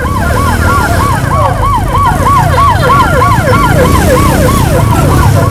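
Electronic siren in a fast yelp, sweeping up and down about three times a second, over a low rumble of traffic.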